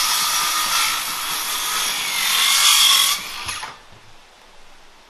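Power saw cutting through a wooden siding board: a steady high-pitched whine and hiss that stops a little over three seconds in, then quiet.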